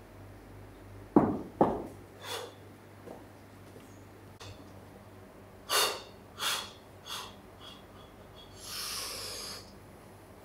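Two loud thumps about a second in. Then a deadlifter's sharp breaths through the nose as he sets up over the barbell: three quick sniffs between about six and seven seconds, and one longer breath near nine seconds as he braces for the pull.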